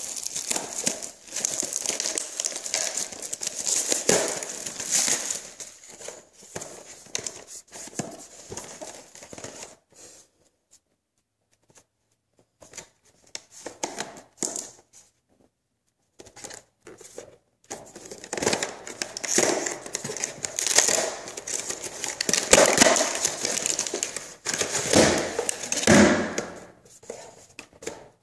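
Plastic packaging crinkling and crumpling in irregular spells as a boxed battery pack is unwrapped and opened by hand. It goes nearly silent for a couple of seconds about ten seconds in, and there are a few duller knocks near the end.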